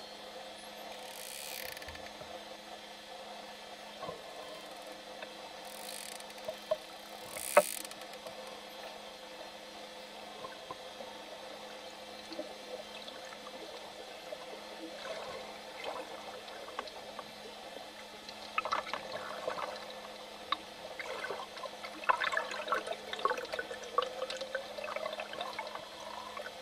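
Underwater sound around swimming dolphins: a steady water hiss with a sharp click about eight seconds in, and a run of crackling clicks and short chirps in the last third.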